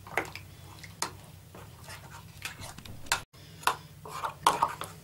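Metal teaspoon stirring a thin yeast starter in a porcelain mug, clinking and scraping against the mug's sides in light, irregular taps.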